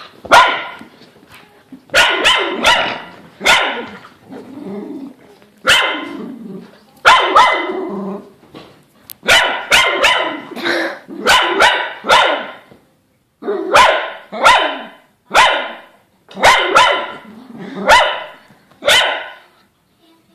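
Dogs barking repeatedly while playing: sharp, loud barks coming in quick clusters of two to four, with short pauses between the clusters.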